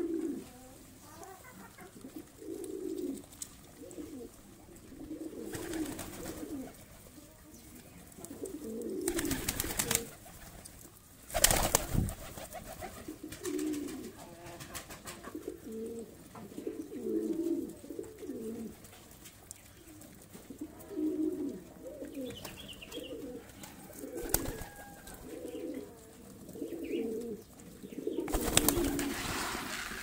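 Flock of domestic pigeons cooing, low throaty coos repeating every second or so and overlapping. A few short rushing bursts of noise break in, the loudest about a third of the way in and near the end.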